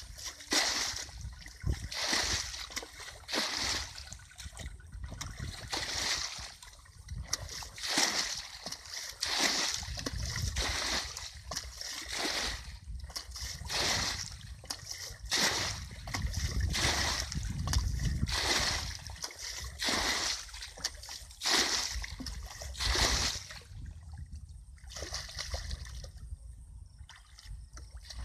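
Muddy paddy water being bailed with a plastic bucket: repeated scoops and pours splashing, roughly one a second, with a quieter spell near the end.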